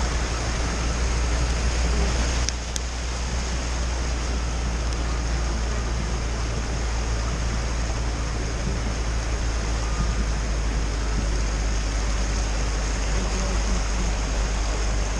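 A van driving through floodwater: a steady low engine drone under an even rush of water around the vehicle, with a brief dip and a small click about two and a half seconds in.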